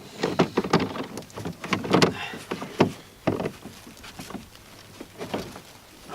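Irregular knocks, clatters and rustles of a kayak and its packaging being handled and unwrapped. They come thick in the first few seconds and thin out after about halfway.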